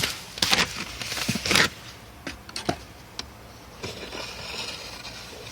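Wire being pulled through a rubber firewall grommet and handled under a car's dashboard: a run of scraping, rustling strokes, a few light clicks, then a softer, steadier scraping from about four seconds in.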